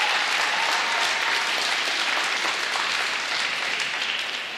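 Arena audience applauding a skater who has just been introduced, the applause slowly dying away towards the end.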